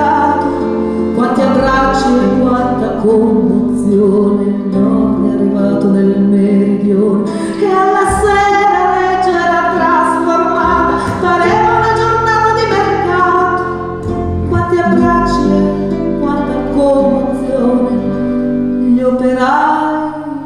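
A woman singing a folk song live, accompanied by accordion, acoustic guitar and double bass.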